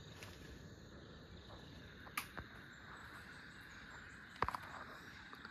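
Faint steady chirring of insects in the background, with a sharp click about two seconds in and a quick run of three clicks about four and a half seconds in.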